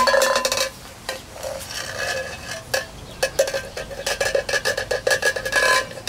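An empty can being pushed and shoved across concrete by a cockatoo's beak: scraping and rattling with many quick knocks, loudest in the first half-second.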